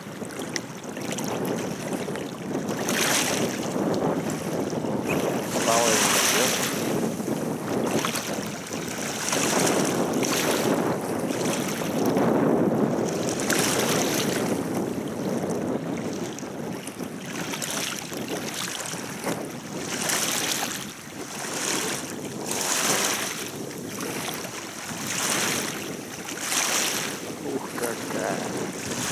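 Wind blowing over the microphone with waves washing against the shore, coming in uneven surges every second or two.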